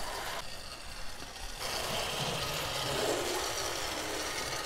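Vintage 1950s HO scale model steam locomotive running on the layout track, its small motor whirring and its wheels rattling over the rails as it pulls a train of cars. It gets louder about a second and a half in.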